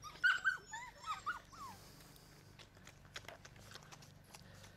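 Foxred Labrador retriever puppy, about seven weeks old, whimpering in a string of short high whines during the first two seconds, then faint clicks. It is begging to nurse while its mother refuses it.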